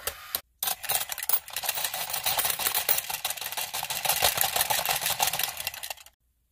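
Motorised plastic dog coin bank running its eating cycle: a dense, rapid plastic gear clatter as the dog dips its head into the bowl to take the coin and sits back up, stopping abruptly near the end. It opens with a couple of clicks from another toy and a brief silence.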